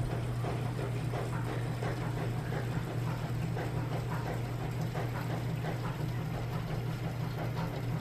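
Heavy rain pouring down and splattering on a wet concrete balcony floor, a steady hiss of drops, with a constant low hum underneath.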